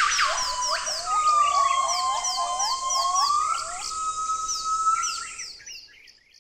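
Electronic end-screen sound effect: a long gliding tone with rapid, evenly repeated synthetic chirps over a hiss, with a brief whoosh in the first second. It fades out near the end.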